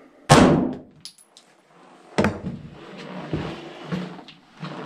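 A single 9 mm pistol shot from a Glock 17, fired into a knife handle lying on a board, about a quarter-second in, with a short echo. A smaller sharp knock follows about two seconds later, then a few footsteps on brick paving.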